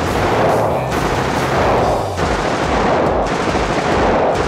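Belt-fed light machine gun on a bipod firing fully automatic in long, rapid bursts with only brief breaks between them, echoing in an indoor shooting range.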